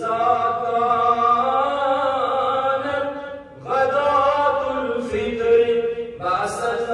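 A man chanting devotional verse into a microphone in long, held notes. He sings three phrases, with short breaths about three and a half seconds in and again near the end.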